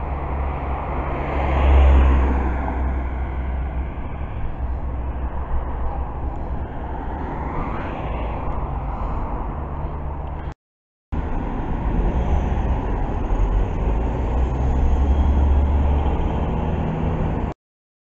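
Steady wind rumble on the microphone of a camera carried on a run, over road traffic; a car passes about two seconds in and another fainter one around eight seconds. The sound cuts out completely for a moment about eleven seconds in and again just before the end.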